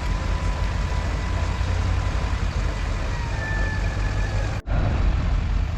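Truck engine running steadily with a deep rumble and a thin, steady high whine above it. The sound drops out for an instant about four and a half seconds in.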